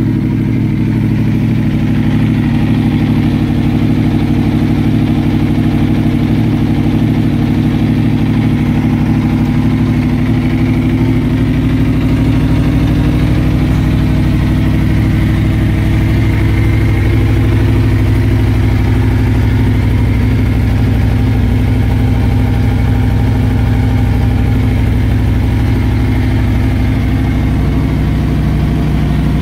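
Aprilia Tuono V4 Factory's V4 engine idling steadily.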